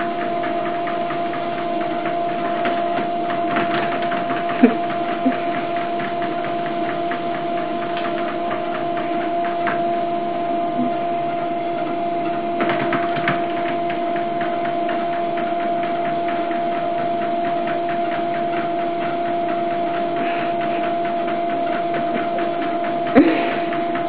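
Home treadmill running steadily, its motor giving a constant hum and whine under the moving belt, with a few light knocks and clicks.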